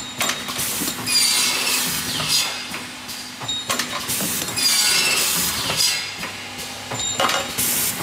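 Automatic aluminium window-hinge processing machine running through its cycle: a burst of hissing with a falling high-pitched screech about every three seconds as it works the hinge profiles, over a steady machine hum.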